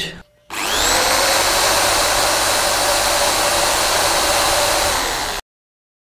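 A 350 W corded electric drill starts about half a second in. Its whine climbs quickly to full speed and then runs steadily while it spins a magnet rotor at about 2050 rpm. The sound cuts off suddenly near the end.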